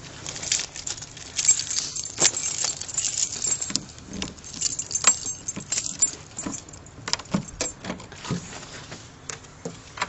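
Irregular metallic jingling and clicking of small metal pieces, densest in the first half and thinning out towards the end, over footsteps on gravelly ground.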